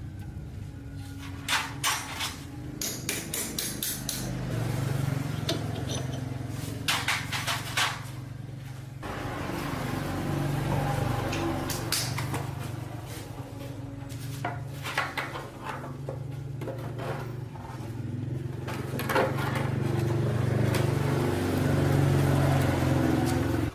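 Repeated sharp metallic clinks and knocks over a steady low hum that swells and fades several times.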